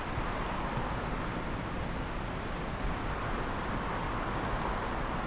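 Steady city street traffic noise, an even rush of passing cars. A faint, thin high whine joins about four seconds in.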